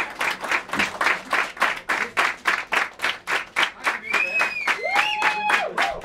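Crowd applauding in a steady rhythm, about four claps a second. Someone whistles and a voice cheers near the end.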